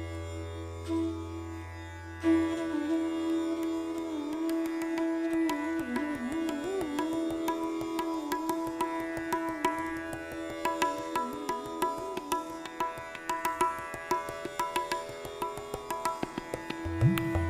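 Background instrumental music in an Indian classical style: a plucked-string melody with bending notes and quick plucked runs over a steady drone.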